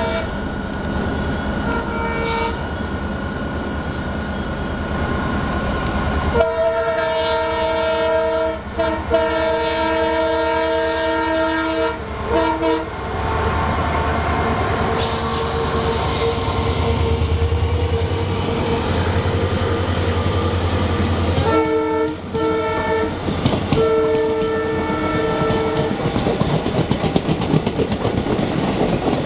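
Indian Railways EMD diesel locomotive horn blown again and again as two trains pass on adjacent tracks: two short toots, then a long multi-tone blast of about six seconds with brief breaks, and another series of blasts later, over the steady rumble of the diesel engine. Near the end the passing coaches' wheels clatter rapidly over the rail joints.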